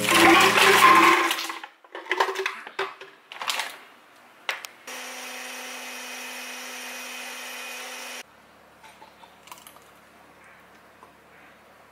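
Berries rattling into a glass blender jar, then a few clicks and knocks as the jar is set up. A small personal blender's motor runs steadily for about three seconds and cuts off abruptly. Near the end comes faint pouring of the berry smoothie into a glass.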